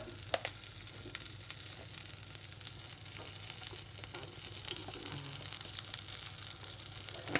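Floured cod fillet frying in oil in a pan: a steady sizzle with scattered crackles and pops, one sharper pop shortly after the start.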